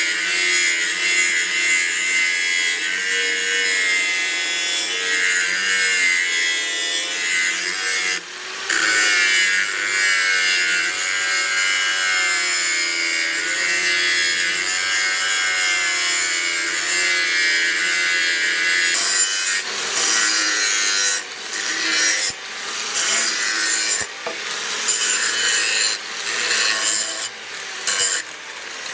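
Power grinder working steel, a continuous abrasive hiss with a motor whine that wavers in pitch as the load changes. It breaks off briefly about eight seconds in, then several times in quick succession near the end.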